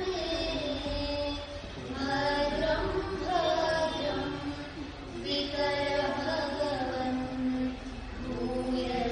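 Women's voices chanting a prayer in a slow, melodic recitation, in about four phrases with short pauses between them.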